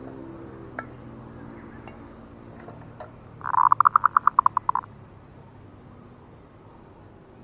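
Zebra dove (perkutut) calling: one rapid run of staccato notes, about ten a second, lasting about a second and a half, a few seconds in. A few faint clicks and a low steady hum lie under it.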